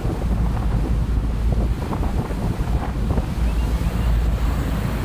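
Wind buffeting the microphone over the steady rumble of a Chao Phraya express boat under way, with water rushing past the hull.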